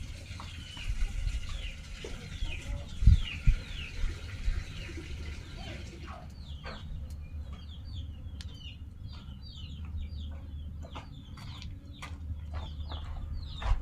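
Birds calling: short falling chirps repeated about twice a second for the first five seconds, then quicker, scattered chirps, over a low steady rumble. A dull thump about three seconds in.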